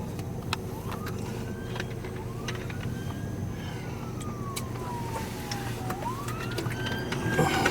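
A siren wailing faintly in slow rising and falling sweeps, heard over the steady low road and engine noise of a moving vehicle.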